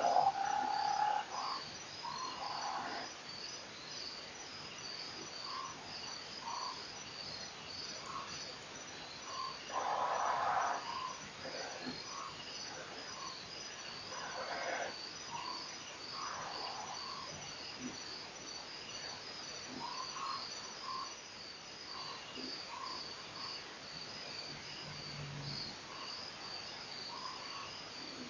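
Night chorus of crickets, a steady rapid pulsing throughout. Scattered short animal calls sound over it, the loudest around a third of the way in and again about halfway.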